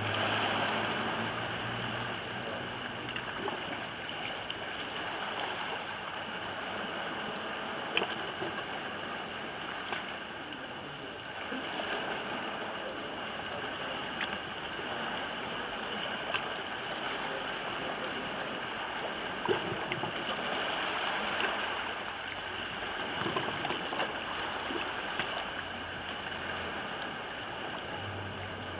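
Sea water lapping and washing against a rocky shoreline: a steady wash with scattered small clicks and splashes.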